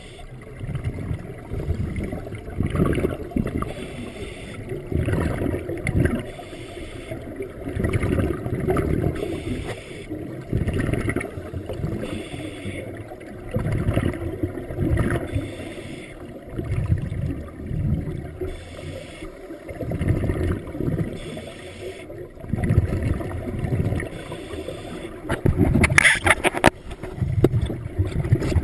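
Scuba diver's regulator breathing heard underwater: exhaled bubbles gurgling in surges every two to three seconds. A short sharp clatter near the end.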